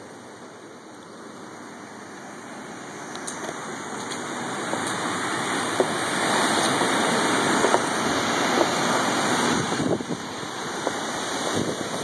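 Hurricane rain and rushing floodwater: a steady hiss that grows louder over the first half and then holds.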